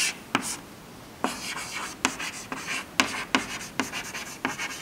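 Chalk writing on a blackboard: a sharp tap of chalk, then from about a second in quick scratching strokes punctuated by sharp taps as a word is written.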